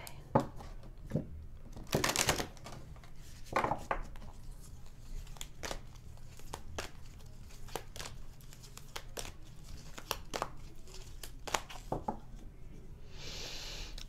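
Oracle cards being shuffled by hand: irregular soft clicks and slaps of cards against each other, with a denser run of shuffling about two seconds in and a brief rushing slide of cards near the end.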